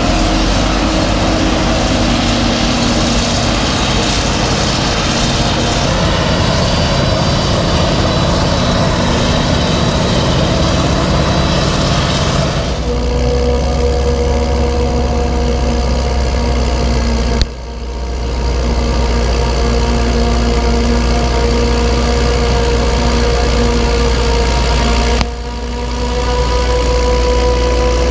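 Heavy farm machinery running steadily in a maize field, the engine drone of the forage harvester and tractors at work. The sound shifts abruptly about 13 seconds in and breaks off briefly twice, near 17 and 25 seconds in, as between different shots.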